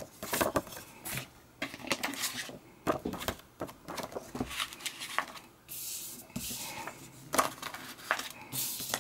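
Paper leaflets from a DVD case being handled and shuffled: rustling, with many short sharp clicks and taps.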